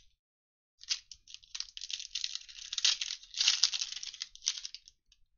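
Foil wrapper of a football trading-card pack crinkling and tearing as it is ripped open by hand, starting about a second in.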